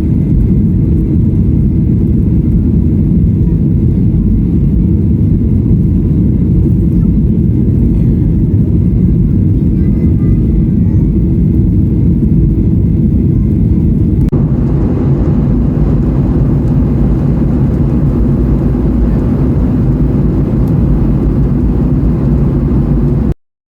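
Steady low rumble of a moving vehicle. About fourteen seconds in it gets fuller in the middle range, and it cuts off abruptly near the end.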